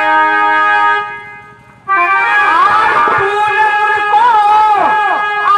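Instrumental music from a Nautanki stage band: held chords that fade out about a second in, then music starting again about two seconds in with a held note under a melody that bends up and down in pitch.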